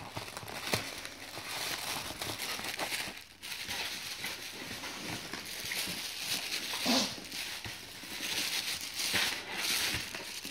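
Crinkling and rustling of a padded paper mailing envelope being opened by hand: a continuous crackle with scattered sharper clicks.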